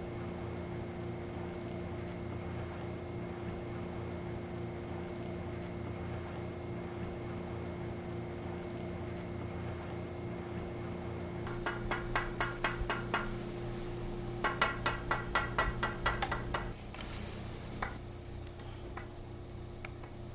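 Brass pool-cue tip scuffer rasped over the cue's leather tip in quick strokes, giving two runs of rapid, even scratchy ticks, about eight a second, a little past halfway through. Under them is a steady hum that drops away after the second run.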